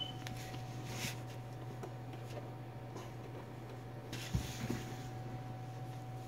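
Steady low hum with a faint steady higher tone, broken by a few light clicks and a soft knock a little past four seconds in.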